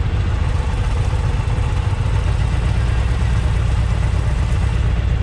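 Two V-twin motorcycle engines, a 2020 Indian Challenger's and a 2017 Harley-Davidson Street Glide's, idling side by side with a steady low rumble.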